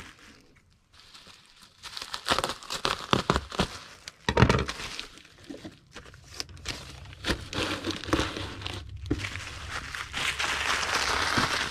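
Plastic bubble wrap crinkling and rustling in irregular crackles as it is folded around a video game case, with a dull knock about four seconds in.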